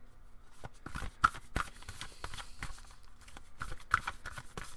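A tarot deck being shuffled by hand: a quick, uneven run of card snaps and slaps starting just under a second in, loudest about a second in and again near four seconds.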